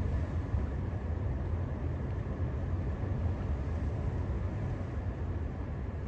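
Ocean surf breaking on the shore: a steady low rumble, with no single wave crash standing out.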